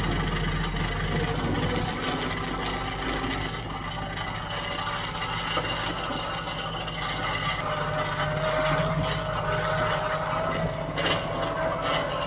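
Kioti CK3510SE compact tractor's diesel engine running steadily with a mechanical rattle. Past the middle a thin whine comes in and edges slightly up in pitch.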